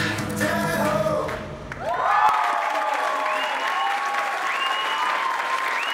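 Music for about the first two seconds, which cuts off abruptly. Then a crowd applauding, cheering and screaming, with shrill whoops rising and falling over the clapping.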